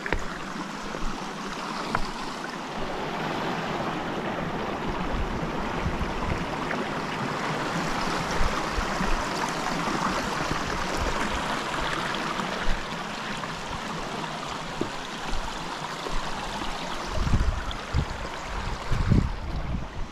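Shallow creek water running over flat stone ledges and rocks in a steady rushing wash. A few low thumps come near the end.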